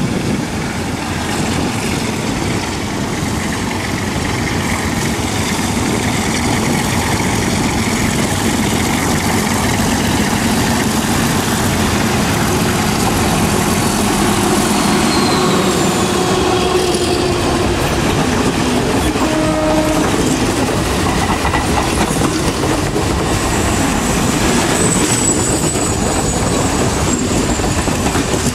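Sri Lanka Railways Class M7 diesel locomotive approaching and passing, its engine working hard, then the rumble and clickety-clack of the passenger coaches' wheels over the rail joints. It grows louder as it nears, and a brief horn note sounds about two-thirds of the way through.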